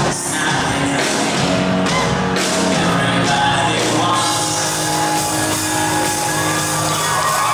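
Live rock band playing loudly in a concert hall: electric guitar, drums and keyboard, with a male voice singing over them.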